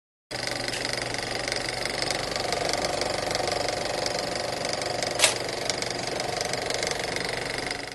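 Film projector running: a steady mechanical clatter and whir with one sharp click about five seconds in, fading out near the end.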